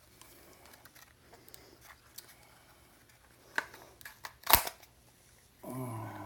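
Small clicks and taps of hands working on a computer circuit board and its parts, with two sharper clicks between three and a half and four and a half seconds in, the second the loudest.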